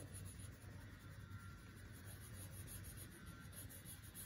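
Faint scratching of a plastic crayon rubbed back and forth on paper while colouring in, over a low steady hum.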